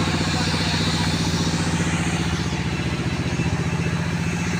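A truck engine running steadily at an even, unchanging speed with a fast regular pulse, like idling.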